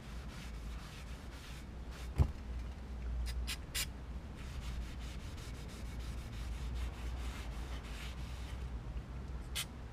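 Cloth rubbing over a brake disc as it is wiped clean, with a single knock about two seconds in and a few short hisses.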